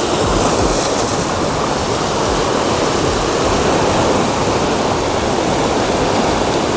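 Ocean surf breaking and washing against shoreline rocks: a steady, continuous rush of noise.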